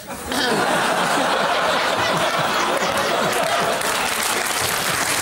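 Studio audience laughing and applauding after a punchline, coming in suddenly just after the start and then holding at a steady level.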